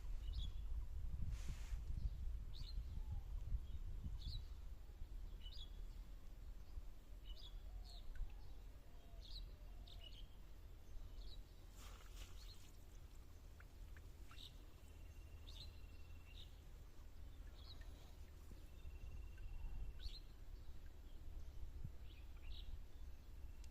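A bird calling with short high chirps every second or two, plus a few longer thin whistles in the second half, over a low rumbling background noise that is strongest at the start.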